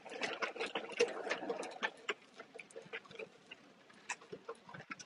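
Footsteps on a hard tiled floor: a series of irregular taps and clicks that grow fainter toward the end, over a faint steady hum.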